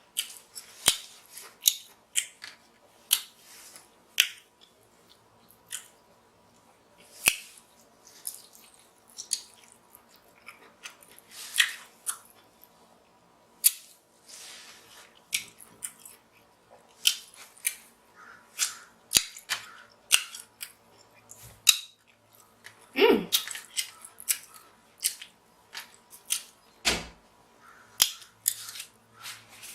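Close-miked eating of king crab legs: an irregular run of sharp clicks and wet smacks, about one every second.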